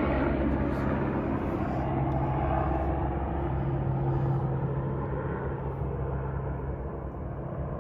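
Steady low mechanical drone, easing off slightly toward the end.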